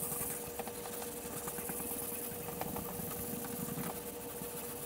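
Hand sanding a fiberglass spoiler with 320-grit sandpaper: a steady scratchy rubbing, with a constant faint hum underneath.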